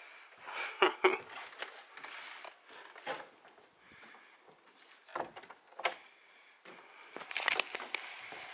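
Footsteps on a wooden boardwalk and wooden stairs: a few irregular knocks, the loudest about a second in, with faint high squeaks near the middle.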